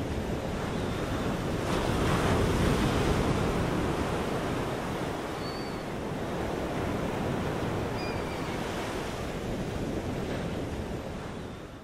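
Steady rushing wind noise buffeting the microphone outdoors, swelling a little about two seconds in, with two faint high chirps around the middle.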